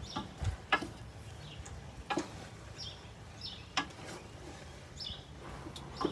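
Wooden spatulas knocking against a large metal pot as a big batch of fried noodles is tossed and stirred: irregular clacks about a second or so apart. Short high bird chirps sound between the knocks.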